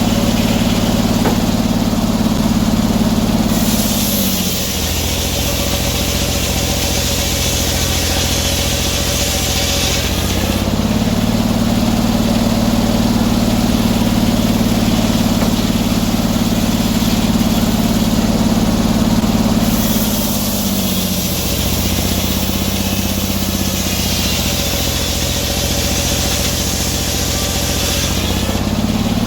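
Sawmill engine running, bogging down twice under load as the blade saws through pine, with a loud hiss of cutting, then picking back up as each cut ends, about ten seconds in and again near the end.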